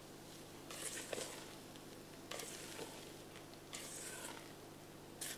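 A spatula folding whipped egg whites into thick chocolate cake batter in a metal bowl, making soft, wet swishing strokes about every second and a half.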